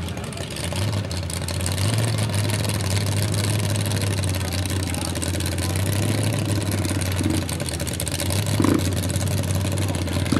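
A vehicle engine idling steadily, a low hum over a constant noisy background.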